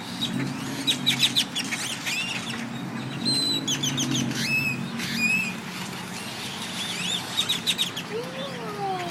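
A large flock of birds calling all at once: many overlapping chirps and short whistles, with a low steady hum underneath.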